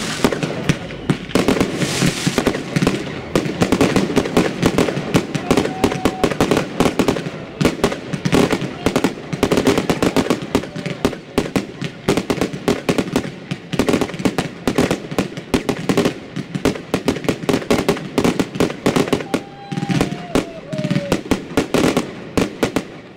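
Fireworks going off overhead: a continuous run of sharp pops and crackles, many per second, as aerial bursts fire one after another.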